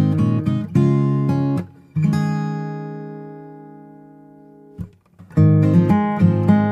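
Background music on acoustic guitar: strummed chords, then one chord left to ring and slowly fade for a few seconds before the strumming starts again near the end.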